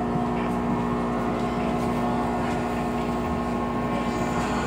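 MTR M-train's traction equipment whining with several steady tones over the rumble of the car as the train starts to pull away from the platform. This is the eerie start-up wail the uploader calls 鬼叫 ('ghost screaming').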